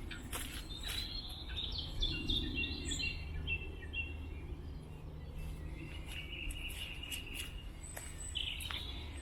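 Small songbirds singing: a quick run of short notes stepping down in pitch about a second in, then a longer thin phrase later on, over a steady low rumble.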